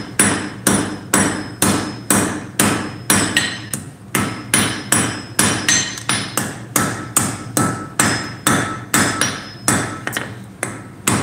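Hand hammer striking a red-hot iron bar on an anvil in a steady rhythm, about two blows a second, each blow followed by a short ring. The smith is forging the bar round and smooth, drawing out a spike.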